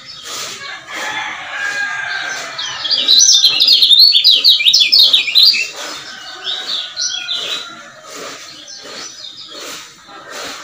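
Caged male kecial kuning (Lombok white-eye) singing. A loud, fast run of sharp chirping notes starts about three seconds in and lasts a couple of seconds, with softer scattered chirps before and after.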